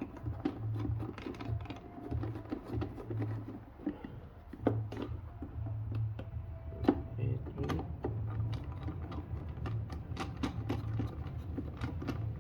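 Phillips screwdriver backing out the screws of a VW Jetta's plastic air-filter housing: scattered clicks, ticks and scrapes of tool and plastic, over a low hum that comes and goes every second or so.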